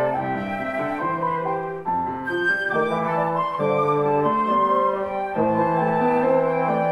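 Small live ensemble of two flutes, trombone and piano playing: the flutes carry the melody over piano chords, with low held notes underneath.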